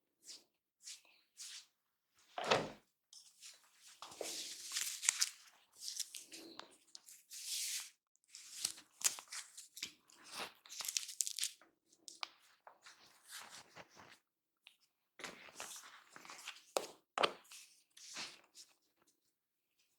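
A barber's hands rubbing and working the hair and scalp close to the microphone: irregular bursts of scratchy, crackling rustle with sharp clicks, and a single knock about two and a half seconds in.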